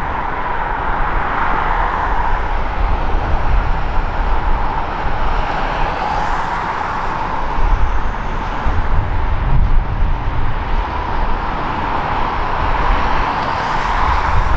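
Amtrak passenger train rolling past and pulling away: a steady rumble of the cars' wheels on the rails with a steady hum over it.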